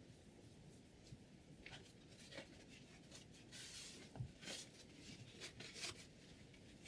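Faint light scratching and a few small clicks from a guided knife-sharpening system being handled, with one short scrape a little past halfway.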